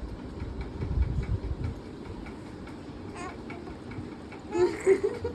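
A two-month-old baby cooing: a few short, high-pitched vocal sounds that bend up and down, loudest near the end, with low rumbling handling noise earlier.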